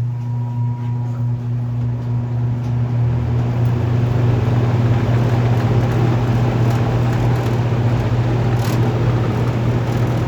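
Lakewood-made 1970s Penncrest 100 box fan starting up: a steady motor hum as the blades come up to speed over the first few seconds, building into an even rush of moving air.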